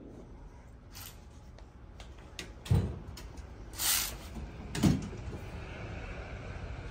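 Handling noise: a sharp knock about two and a half seconds in, a short swishing hiss a second later and another knock about five seconds in, with a few faint clicks before them.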